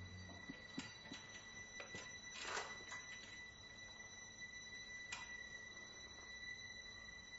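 Quiet, with a steady high-pitched electrical whine throughout, a few faint soft knocks and a brief rustle about two and a half seconds in; the tail of low background music ends just at the start.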